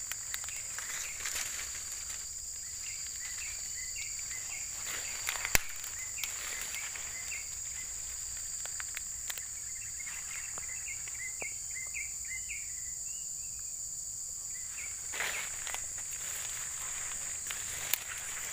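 Steady high-pitched insect drone with runs of short chirps through the middle, and rustling footsteps through leafy undergrowth. One sharp click comes about five and a half seconds in.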